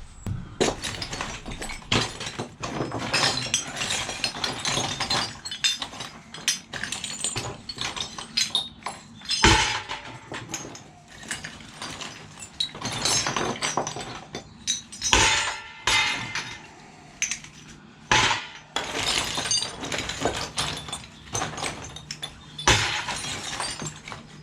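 Scrap copper and brass pieces clinking and clattering as they are sorted out of a box by hand, with several louder clanks as handfuls are dropped.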